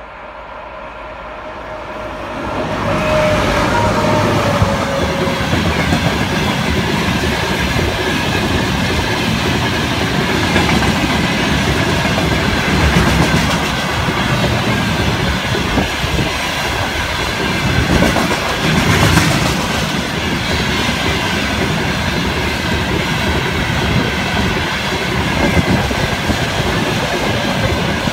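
A freight train of tank wagons passing close by at speed. The locomotive's approach builds up over the first few seconds, with a brief falling tone as it goes by, then the tank wagons roll past in a steady rumble and clatter of wheels on the rails.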